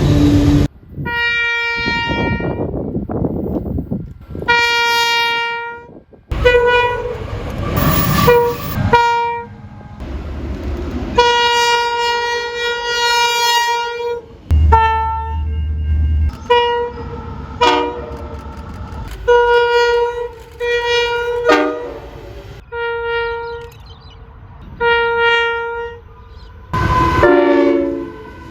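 A run of train horn blasts from different Australian trains, cut one after another. Most are steady single-pitch blasts, some short and some a few seconds long, with train running noise between them. One blast near the end falls in pitch.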